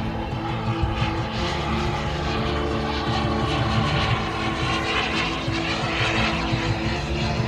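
JetCat P100 turbine of a BVM Bandit RC jet in flight: a steady turbine whine and jet rush that swells between about four and seven seconds in as the jet passes.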